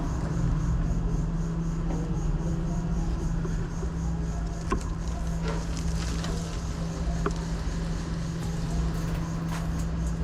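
A steady low hum with a constant rumble underneath. A faint, fast, even high ticking runs through the first half, and a few scattered sharp clicks come later.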